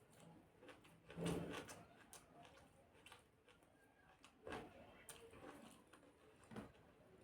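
Faint sounds of eating and handling food: a few short, soft knocks and crunches over near silence, the loudest about a second in.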